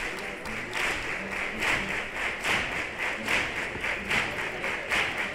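Audience clapping in unison to a steady beat, about two and a half claps a second.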